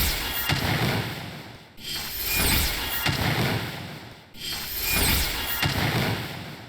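A short noisy sound effect, sold as a broil sound, looped over and over: each pass swells up suddenly and then fades away, repeating about every two and a half seconds.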